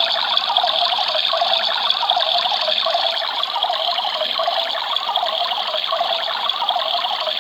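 Battery-operated toy washing machine running steadily, its small motor turning the little perforated drum and swishing the water inside.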